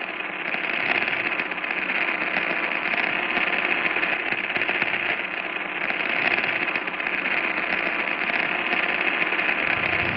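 A steady, fast mechanical clatter with little low end.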